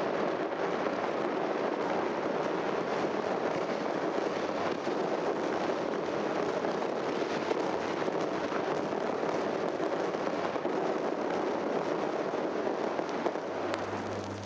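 Fireworks crackling in a dense, continuous barrage of small pops, from an old vinyl sound-effects record. It fades out near the end, leaving a low steady hum.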